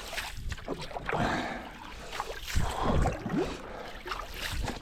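Canoe paddle strokes dipping and splashing in river water, with wind rumbling on the microphone.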